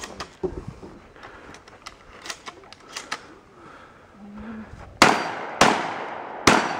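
Shotgun fired three times in quick succession, each blast followed by a short echo, starting about five seconds in, after a few faint clicks.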